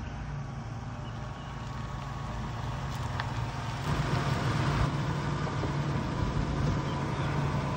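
Ford F-150 pickup's engine idling with a steady low hum, louder from about four seconds in, close to the front grille.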